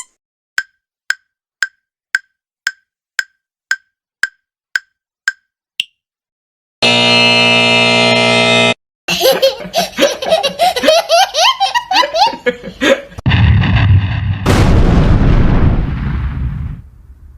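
Quiz sound effects in sequence. First about ten short ticks of a countdown timer, roughly two a second, then a steady buzzer tone lasting about two seconds. Next come a few seconds of quick sliding, up-and-down pitched sounds, and last a loud noisy rush that fades away near the end.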